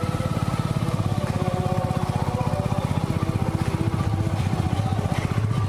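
Vehicle engine running steadily at low speed with a rapid, even putter, moving at the joggers' pace.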